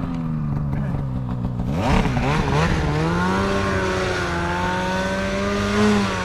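Mountain snowmobile's two-stroke engine revving: its pitch climbs sharply about two seconds in, then holds high and fairly steady, with a brief swell near the end.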